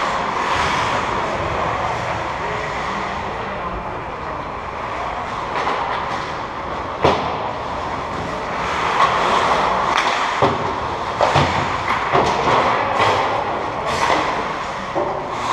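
Ice hockey skate blades scraping and carving on rink ice, with sharp clacks of sticks and puck about halfway through and several more near the end.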